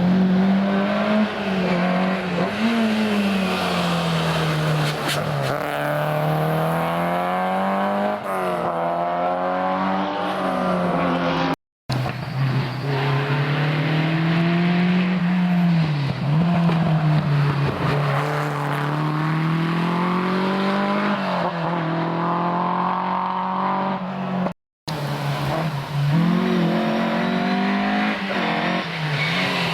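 Historic rally cars at full effort on a special stage, each engine revving up and falling back again and again through the gear changes. There are three separate runs, the sound breaking off sharply a little before halfway and again near the end.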